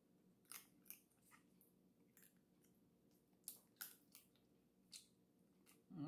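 Quiet eating sounds from picking and eating boiled blue crab by hand: about eight short, sharp clicks and smacks, spaced irregularly.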